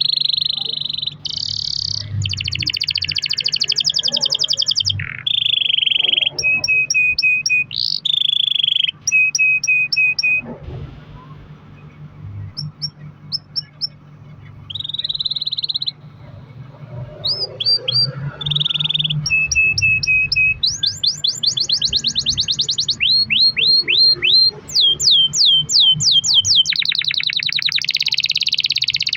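Domestic canary singing a long rolling song of fast trills and runs of repeated chirps. The song thins out to scattered notes for a few seconds in the middle, then builds again into dense trills.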